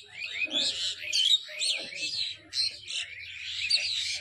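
Many small birds chirping and chattering at once, a dense run of quick overlapping calls with no break.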